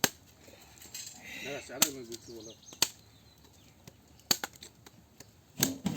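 Blade chopping into a tender coconut: about five sharp, separate strikes, roughly a second or more apart.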